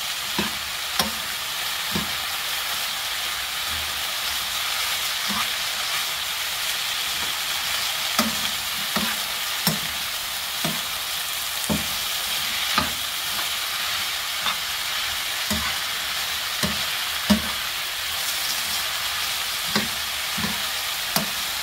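Julienned potato and carrot sizzling in oil in a nonstick frying pan, stirred with a metal spoon that knocks against the pan at irregular intervals, about once a second.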